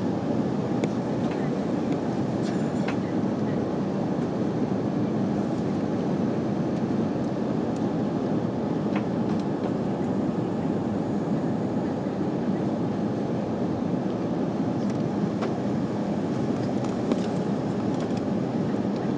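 Steady airliner cabin noise from an Airbus A340 in flight on descent: an even rumble of engine and airflow noise with no change in level, and a few faint ticks.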